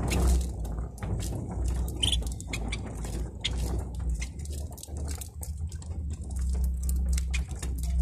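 Caged canaries pecking and cracking seed in a plastic feed dish: a fast, irregular patter of small clicks, with a couple of short high chirps, over a steady low hum.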